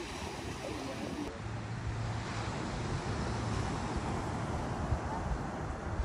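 Ocean surf breaking and washing up a sandy beach, with wind rumbling on the microphone. A faint low hum comes in about a second and a half in and fades a couple of seconds later.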